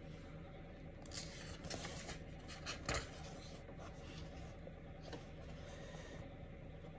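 A paperback book's page being turned: paper rustling for about two seconds with a sharp crinkle near the middle, then a softer rustle a couple of seconds later, over a faint steady hum.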